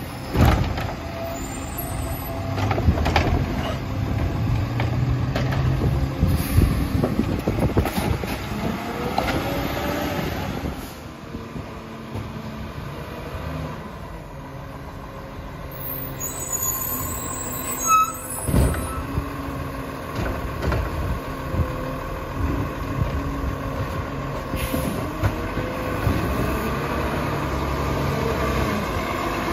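Garbage truck with a Labrie Expert side-loading body on a Crane Carrier chassis, its diesel engine running and revving as it works the curb and pulls up to the next cart. There is a rise and fall in pitch about a third of the way in, and two sudden sharp noises, one just after the start and one about two-thirds of the way through.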